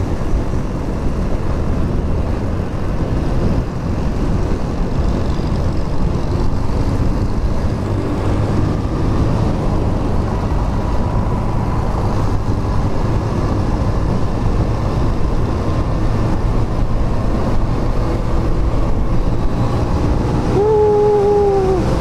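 Motorcycle riding on the road: a steady engine and road rumble under wind noise on the rider's microphone. Near the end a short, clear steady tone sounds for about a second.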